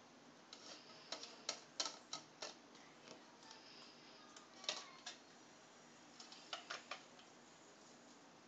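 Faint, irregular clicks and taps from playing cards being handled, coming in small clusters: a few about a second in, a sharper one near the middle, and a quick run of them later on.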